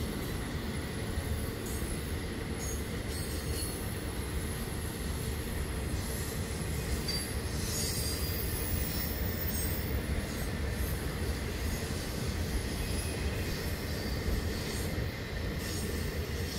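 Intermodal freight train of semi-trailers on flatcars rolling past: a steady rumble and clatter of steel wheels on rail, with a faint high squeal from the wheels.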